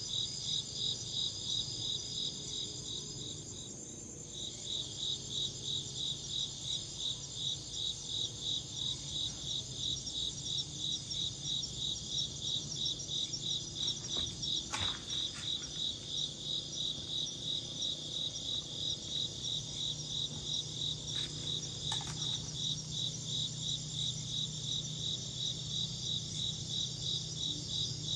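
Crickets chirping in a steady, even rhythm of several chirps a second, with a brief break about three to four seconds in, over a continuous higher-pitched insect trill.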